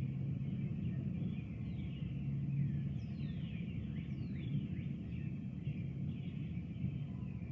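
Birds calling and singing in the dawn chorus, with two clear falling whistles about three and four seconds in, over a steady low rumble.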